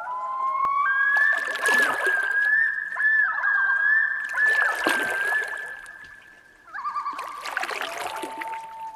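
Long, held animal calls that waver and dip in pitch, at times two at once, over splashing water that comes every second or two.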